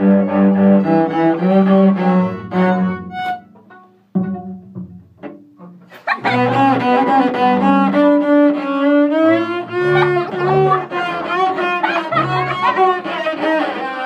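Student string ensemble with a cello playing bowed notes together. The playing fades out about four seconds in, then starts again suddenly and louder about six seconds in.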